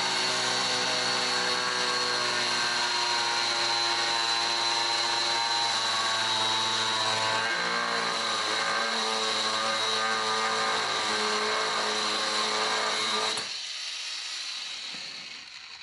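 Bosch 18 V cordless angle grinder with a 125 mm disc cutting through a 50 mm square, 4–5 mm thick steel section. It runs at a steady pitch with a high whine. About 13 seconds in it cuts off and the sound dies away as the disc runs down.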